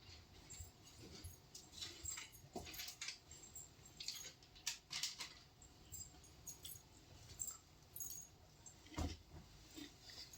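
Faint, irregular light clicks and taps, with a stronger knock about nine seconds in.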